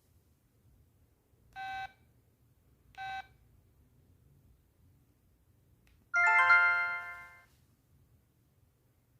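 LG MD5330 mobile phone sounding two short key beeps, then playing a brief ringtone that rings out for about a second and a half and fades away.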